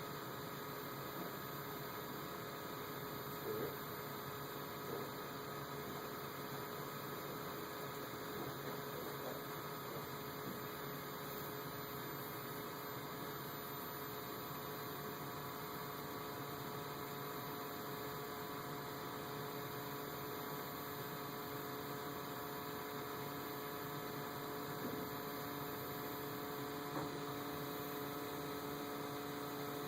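A steady hum made of several held tones over a constant low noise, with a lower tone joining about 25 seconds in and a few faint small knocks.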